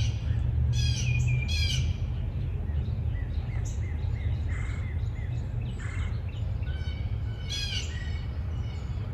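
Birds chirping and calling: a cluster of sharp calls in the first two seconds and another near the end, with fainter chirps in between, over a steady low rumble.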